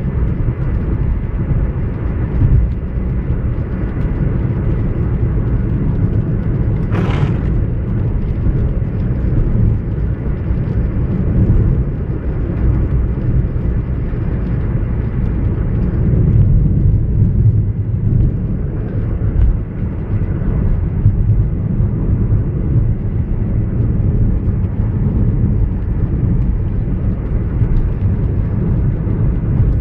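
A car driving on a wet road, heard from inside the cabin: a steady low rumble of engine and tyres, with a brief hiss about seven seconds in.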